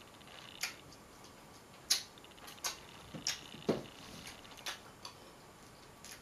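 Close-up eating noises: a series of sharp, wet mouth clicks and smacks from chewing and licking fingers, irregularly spaced. The loudest come about two seconds in and just before four seconds in.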